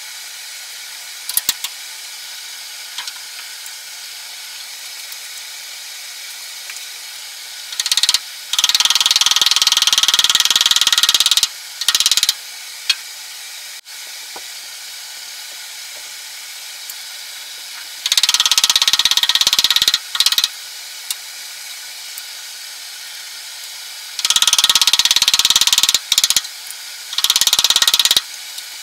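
A carving gouge shaving flutes along a stationary cherry-wood reamer blank held by the lathe's indexing plate. It makes several loud rasping cuts of one to three seconds each, with short scrapes between them, over a steady hum.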